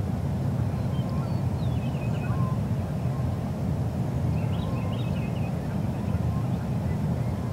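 A steady low rumble of outdoor noise, with small songbirds chirping in short bursts a few times. No turkey gobbling or drumming stands out.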